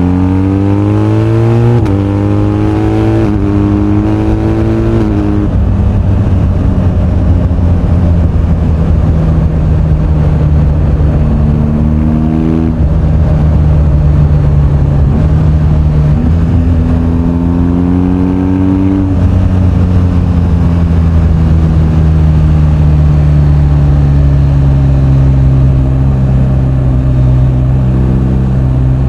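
BMW R1250GS 1254 cc boxer-twin engine pulling hard through the gears, its pitch rising and dropping a step at each upshift, three times in the first five seconds. It then runs steadily, pulls up again with another upshift about two-thirds in, and its pitch falls slowly as the bike slows.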